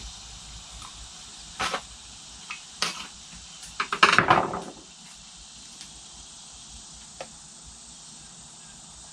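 Plastic jug, measuring cups and stir stick being handled at a work table while mixing two-part flotation foam: a few light knocks and clatters, then a louder scraping, rustling handling noise lasting under a second about four seconds in. A faint steady high hiss runs underneath.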